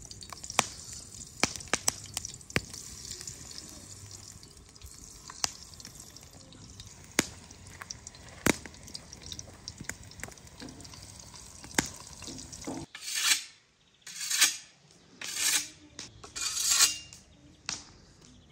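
Eggplant slices frying in hot oil in a cast-iron pan: a steady sizzle, with sharp clicks as slices and utensils touch the pan. After about thirteen seconds the sizzle stops and four short scraping strokes, each about half a second long, come from a scythe.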